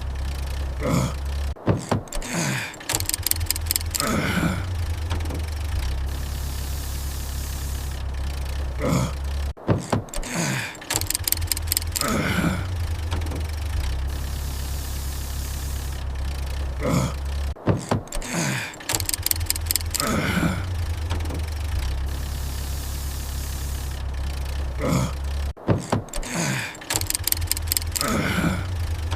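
Car engine sound effect of a failed start, looping: a rapid run of clicks like a starter cranking and falling tones as the engine dies, over a steady low hum. The cycle repeats about every eight seconds, four times.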